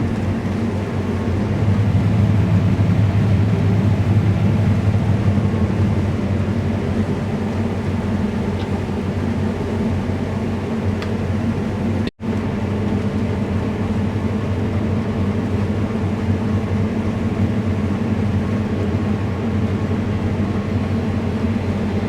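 Combine harvester running steadily while harvesting, heard from inside the cab: an even, low engine and threshing drone. The sound cuts out completely for an instant about halfway through.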